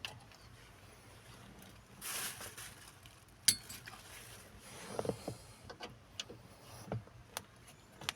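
Scattered small clicks, taps and knocks of hand work on car door parts, with a short rustle about two seconds in and one sharp click, the loudest sound, about a second later.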